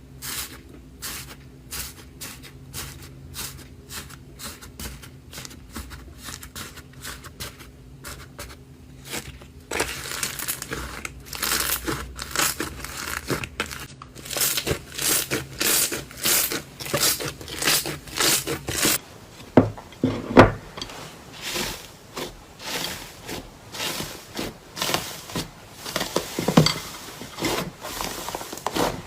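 Slime being squeezed and poked by hand, giving short sticky clicks and pops and crinkly crackling. The texture changes about ten and again about nineteen seconds in, as one short clip gives way to the next.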